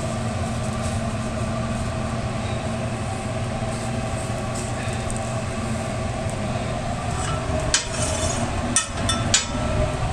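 Steady hum of a food truck's kitchen machinery, with a few light knocks and clatters about eight to nine seconds in.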